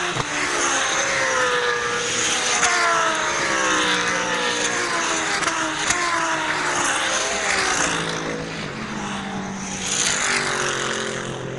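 Several GT race cars passing in a close pack, their engines overlapping and each note falling in pitch as it goes by.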